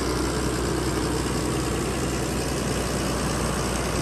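Large farm tractor's diesel engine idling steadily.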